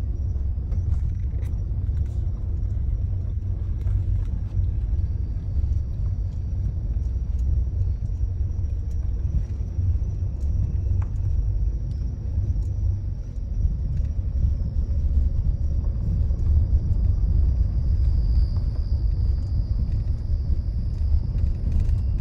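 Steady low rumble of a car rolling slowly over a rough road, heard from inside the cabin, with scattered faint ticks.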